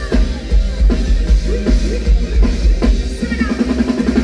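Live band music over a stage PA: a drum kit keeps a steady driving beat, with heavy bass-drum thumps and sharp snare hits.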